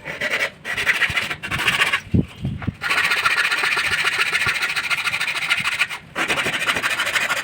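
Woodworking power tool cutting wood in several passes, a short one, one about a second long, then two longer runs of two to three seconds, with brief pauses between.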